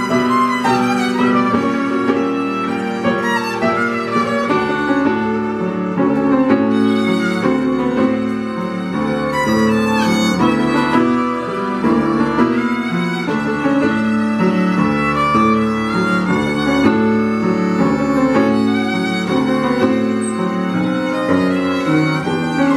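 Solo violin bowed with vibrato, playing a continuous melody over upright piano accompaniment.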